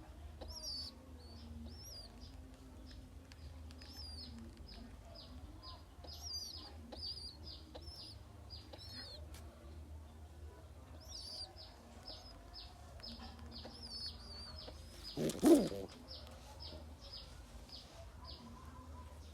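Birds at a pigeon farm: long runs of short, high chirps repeating about three a second, with one loud squawk about fifteen seconds in, over a steady low hum.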